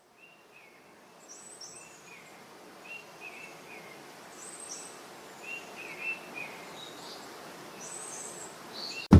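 Outdoor ambience fading in, with birds calling in short, repeated chirps at a low and a high pitch over a soft steady hiss that slowly grows. Loud rock music cuts in suddenly at the very end.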